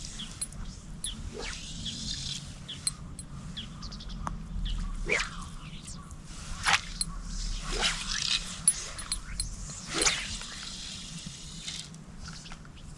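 Fly rod and fly line swishing through the air during repeated casting: several quick swishes and stretches of hiss over a steady low rumble.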